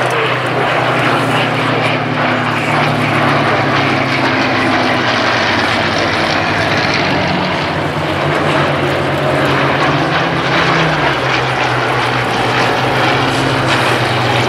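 Several Hawker Hurricanes' Rolls-Royce Merlin V12 piston engines running as the formation flies past: a steady, loud engine note whose pitch drifts slightly as the aircraft move.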